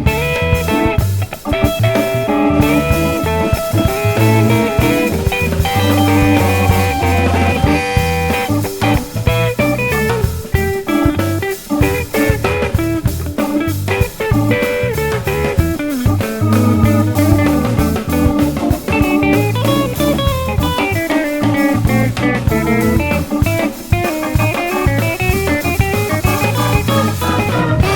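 Background music: guitar-led blues-rock with a drum kit and a steady beat.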